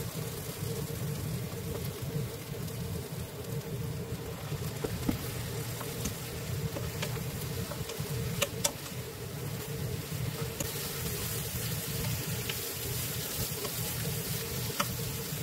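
Eggplant slices sizzling as they are stir-fried in a nonstick wok, with a wooden spatula clicking and scraping against the pan now and then, over a steady hum.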